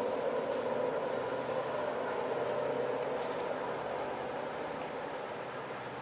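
Outdoor ambient noise: a steady hum, such as distant traffic, slowly fading. A bird gives a quick run of about five high chirps a little past halfway.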